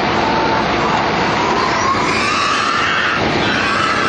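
Steady, loud rushing vehicle noise, with faint wavering high tones coming in about two seconds in.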